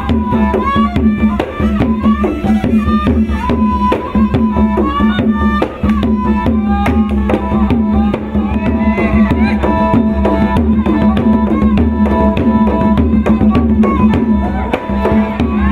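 Traditional Khmer ensemble music of the old wedding-orchestra kind: hand drums beating fast and densely over a steady low drone, with a melody whose notes slide and bend.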